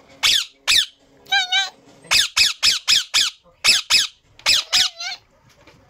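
Rose-ringed parakeet (Indian ringneck) squawking: a rapid string of about a dozen short, harsh screeches, with a couple of longer warbling calls among them, stopping shortly before the end.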